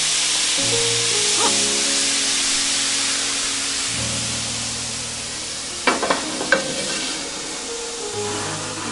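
Strawberries and sugar sizzling in a smoking-hot cast iron pan, the hiss slowly fading. A few sharp knocks come about six seconds in.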